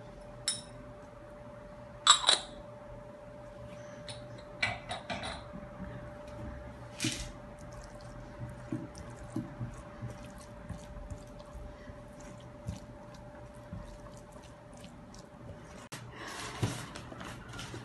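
A silicone spatula scraping and clicking against a nonstick frying pan as it stirs a crumbly minced-meat and onion filling, with a couple of sharper knocks about two seconds in. A faint steady hum runs underneath. Near the end a rustling starts.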